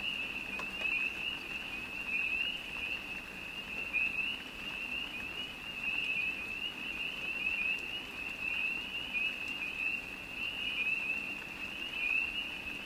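A dense night chorus of many small calling animals: a steady, high-pitched band of rapid, overlapping chirps that keeps on without a break.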